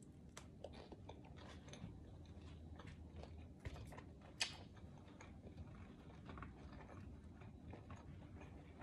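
Quiet close-up chewing of pizza: soft mouth clicks and small crunches, with two sharper crunches around the middle.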